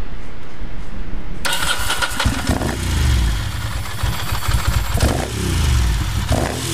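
A 2002 Ducati Monster 620ie's air-cooled L-twin, breathing through a Termignoni high exhaust, fires up about a second and a half in. It is then blipped on the throttle three times, each rev rising and falling back to idle.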